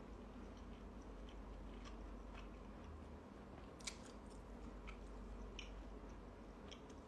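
Faint biting and chewing mouth sounds close to a phone microphone: scattered small crunchy clicks, with one sharper click about four seconds in.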